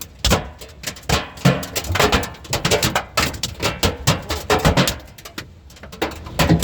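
Hailstones pelting down: a dense, irregular clatter of hard hits, easing a little about five seconds in.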